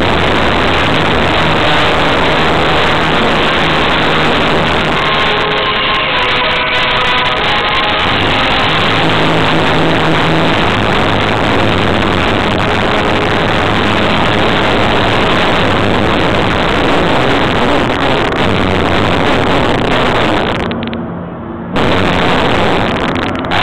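Loud music from an overhead loudspeaker, heavily distorted and smeared because it overloads the microphone, with only faint traces of melody showing through.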